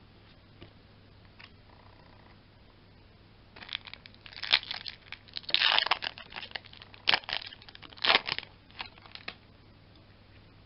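A foil Yu-Gi-Oh booster pack wrapper being torn open and crinkled by hand: a run of crackling rips that starts about three and a half seconds in and lasts some five seconds.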